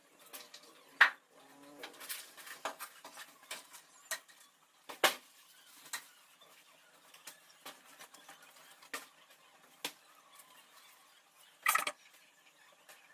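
Irregular sharp clicks and knocks of hard objects tapping and being set down, the loudest about a second in, around five seconds in and near the end.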